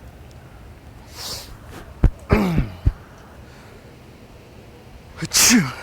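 A man's fake sneezes, two loud 'achoo's that drop in pitch: one about two seconds in, with a couple of sharp knocks around it, and a hissier one near the end. They are staged prank sneezes.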